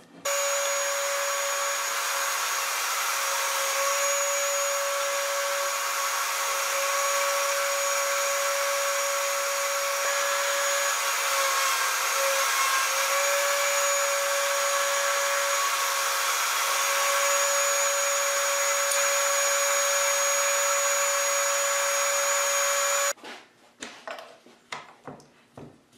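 Table-mounted router running at speed, steady and loud with a high whine, as a cherry board is fed through it to cut a slot; the whine dips slightly in pitch for a moment about halfway through, as the cut loads it. It cuts off suddenly near the end, followed by a few light knocks and rubbing.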